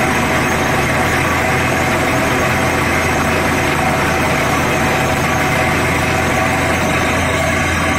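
Watertec 9000 borewell drilling rig running steadily while drilling, its engine hum under the steady hiss and patter of rock cuttings and muddy water blown up out of the bore hole by compressed air.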